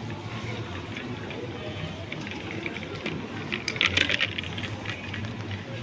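Airport terminal background: a steady hum and faint murmur, with a short burst of light clicking and clinking about four seconds in.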